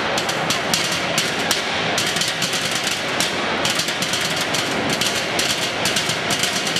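Drumline drumming on trash cans: a fast, dense, unbroken stream of stick hits.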